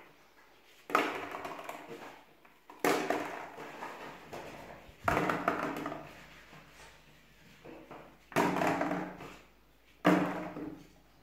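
Hollow plastic ball-pit balls dropped into a water-filled toilet bowl: five sudden landings, each a hollow knock that rings briefly and fades over about a second.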